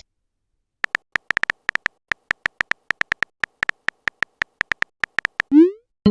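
Smartphone keyboard typing sound effect: an irregular run of short, quick clicks as a message is typed, followed near the end by a short rising swoosh of the message being sent.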